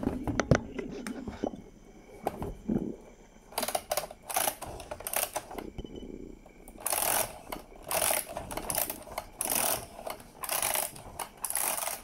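A toy airport playset being handled and set down on a table: a few clicks, then a run of short scraping, rustling noises.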